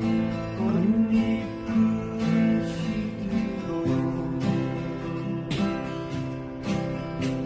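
Acoustic guitar strummed in chords, with a steady run of strokes and no singing.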